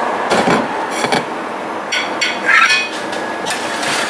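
Kitchen clatter: a few sharp knocks and clinks of a metal spoon and saucepan against a china plate and steel worktop, over steady kitchen noise. The loudest clink, with a short ring, comes past the middle.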